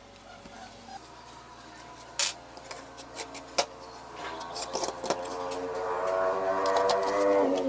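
Sharp clicks and light knocks of a clear plastic trim-router base being handled and set down on a plywood jig plate. From about halfway a steady pitched sound with several tones swells and becomes the loudest thing, then drops off right at the end.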